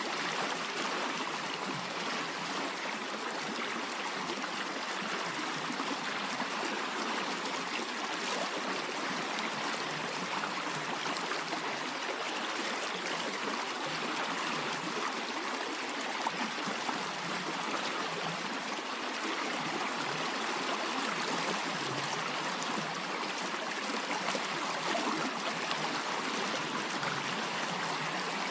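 Small stream flowing over stones, a steady babbling rush of water.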